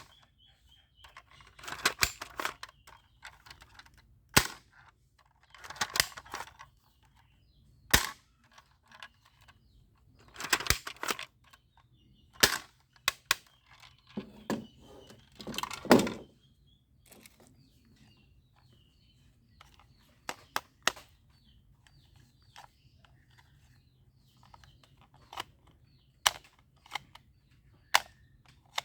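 Plastic toy guns being handled and fired: single sharp snaps every few seconds, with short bursts of clattering plastic in between.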